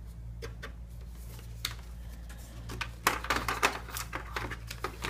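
Light clicks and rustling as an IDE ribbon cable is handled and pressed onto its connectors, busiest about three seconds in, over a steady low hum.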